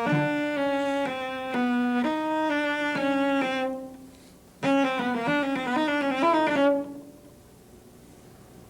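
Solo cello playing the 16th-note four-note groups of a fingering exercise: first at a moderate pace, with separate notes about two a second. After a short break it plays a quick run of notes, which stops about two-thirds of the way through.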